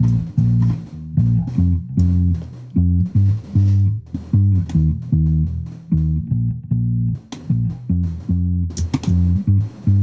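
Mixed electric bass track playing a line of short, plucked notes in a steady rhythm, with no vocal over it. The bass is compressed through a CLA-2A-style compressor and EQ'd to sit evenly and support the vocal.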